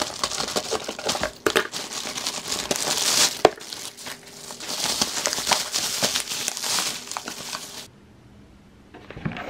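Crinkling and crumpling with many small sharp crackles, as of a wrapper being crushed and handled; it stops abruptly near the end.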